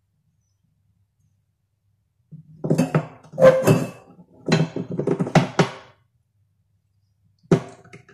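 A stainless-steel saucepan and a glass bowl clinking and knocking against a gas stove's grate and glass top as the pan is lifted off the burner and the bowl is set in place: a quick run of about eight knocks over some three seconds, after two silent seconds, then one more sharp clink near the end as the pan tips over the bowl.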